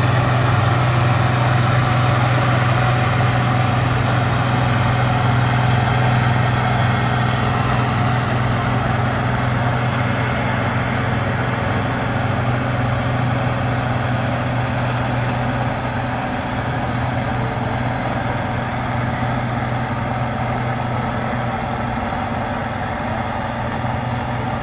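Allis-Chalmers D21's six-cylinder diesel engine running hard under load, pulling a weight-transfer sled at a steady pitch and slowly getting fainter as the tractor moves down the track.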